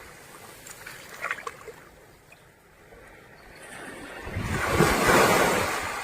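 A sea wave surging up the beach, swelling over a couple of seconds to a peak about five seconds in, then slowly receding.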